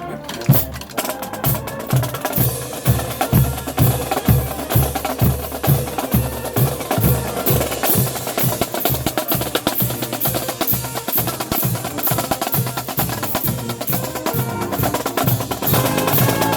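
Marching band playing: brass over a steady drum beat from the percussion section.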